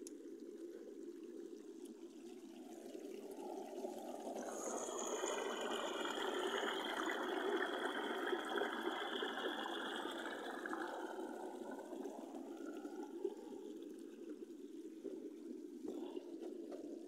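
Water pouring over a small wooden weir board into the channel below. A steady rushing splash grows louder a few seconds in and eases off again after about eleven seconds.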